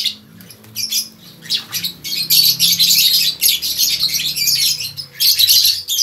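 A crowd of caged lovebirds chattering with rapid, high-pitched chirps and squawks. The calls are scattered for the first couple of seconds and then run almost without a break.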